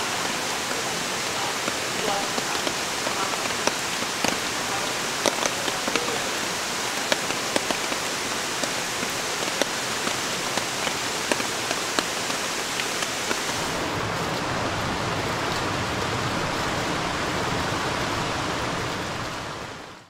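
Rain falling on a shallow mountain stream: a steady patter thick with individual drops splashing onto the water. About thirteen seconds in the sound turns duller and lower with fewer distinct drops, and it fades out at the very end.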